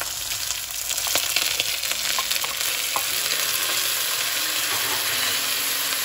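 Soaked, drained rice sizzling steadily as it fries in hot mustard oil with cumin seeds in a stainless steel pan. A few sharp crackles and light knocks come in the first three seconds as the last rice goes in.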